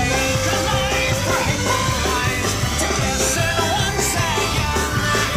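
Celtic punk rock song with singing over a driving beat, laid over the video as its soundtrack.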